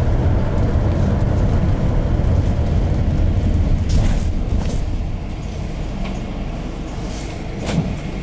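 Cabin noise inside a GAZ Gazelle Next minibus on the move: a steady low engine and road rumble that gets quieter about five seconds in, with a few light clicks.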